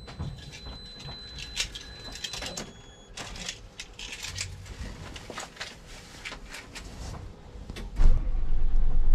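Scattered clicks and knocks in a city bus's driver's cab, then about eight seconds in the bus engine starts and runs with a loud, steady low sound.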